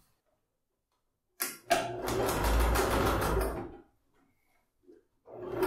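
Electric domestic sewing machine running in two bursts, topstitching a seam through cotton fabric. The first run lasts about two seconds and stops abruptly, and a second run starts about a second and a half later.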